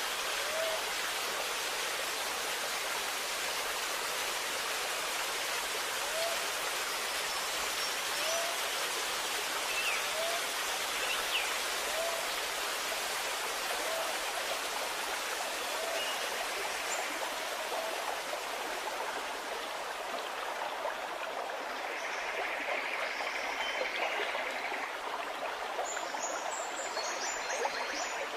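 Steady rushing of water, with faint short chirps recurring every second or two.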